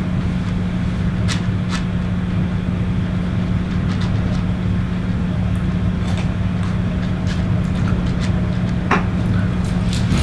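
Steady low mechanical hum at a constant pitch from a machine running in the ice house, with scattered light clicks and taps throughout.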